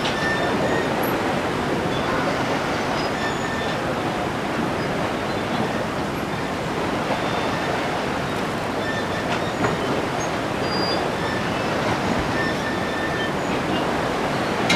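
Steady rushing wash of sea waves, with short, faint, high bird chirps now and then.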